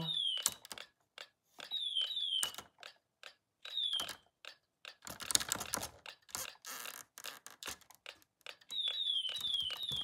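Homemade Snap Circuits fire alarm's sounding device, a repeating high falling chirp, cut off as the reset push-switch is pressed. Sharp clicks follow, the chirp returns in two short bursts, and it sounds steadily again near the end. The reset won't hold: the owner says the transformer that powers the sounding device keeps it going even when the reset button shorts it.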